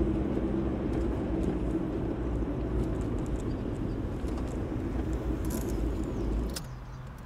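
Car driving slowly: a steady low engine hum with road noise. Near the end it drops abruptly to a quieter hum with a few faint clicks.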